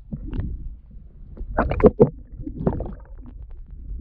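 Water sloshing and splashing around a stand-up paddleboard over a low rumble, with a louder cluster of splashes about halfway through.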